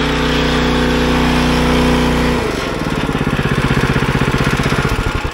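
Harbor Freight 2-inch 212cc gasoline semi-trash water pump's single-cylinder engine running steadily while pumping against closed hoses with no water moving. About halfway through it drops to a slower, evenly pulsing idle.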